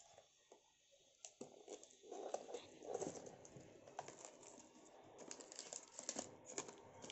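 Faint crinkling and rustling of paper and plastic packaging being unwrapped by hand, a quick irregular run of crackles that starts about a second in and gets busier after that.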